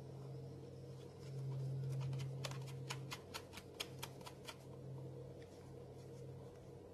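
About a dozen quick light clicks in a row, starting about two seconds in, as parts are pressed and fitted while a carburetor is seated into a string trimmer's engine housing by hand, over a steady low hum.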